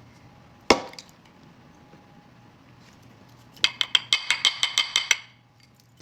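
A mixing bowl struck hard: one sharp knock about a second in, then a quick run of about a dozen ringing clinks, about eight a second, as something hard is rapped against the bowl, as when knocking flour out of a measuring pot.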